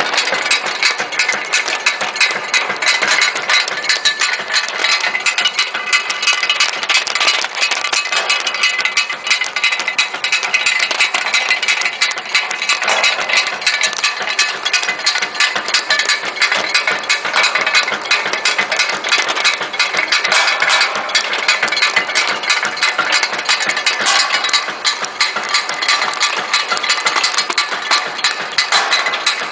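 ZP-27D rotary tablet press running, pressing salt tablets: its punches and turret make a steady, rapid stream of clicks with no pause.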